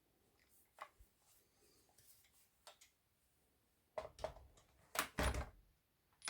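Handling noises: a few faint clicks, then a quick run of sharp clacks and knocks about four to five and a half seconds in.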